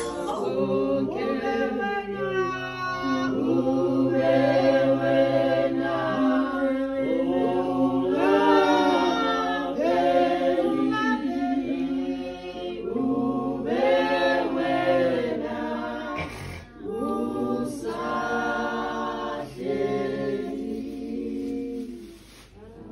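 A group of voices singing together without instruments, in phrases a few seconds long with brief breaks, fading out near the end.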